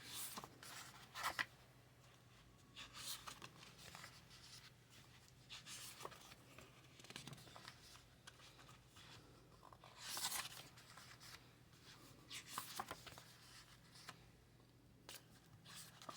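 Faint paper rustling and scraping in short bursts every second or two as sticker sheets and paper cut-outs are handled and pressed down, over a faint steady hum.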